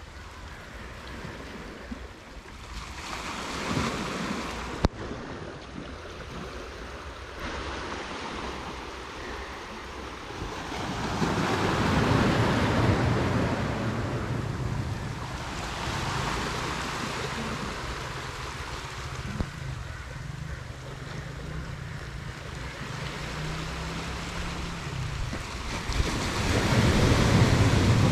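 Sea surf breaking on the beach in slow swells every few seconds, loudest about twelve seconds in and near the end, with wind rumbling on the microphone. A single sharp click about five seconds in.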